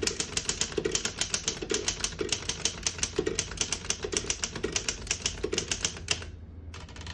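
1934 Underwood No.6 manual typewriter being typed on: a quick, steady run of key strikes, several a second, that stops about six seconds in.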